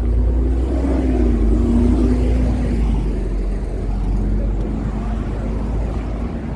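A motor vehicle running close by on the street: a low engine rumble with a steady hum, loudest a second or two in and easing off a little after.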